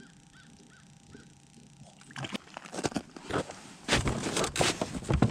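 A bluegill just hauled out of the ice-fishing hole, flopping and slapping on the snow-covered ice: a run of quick, irregular thumps and rustles that starts about two seconds in and is loudest in the last second and a half. Before that, a faint bird chirp repeats a few times a second.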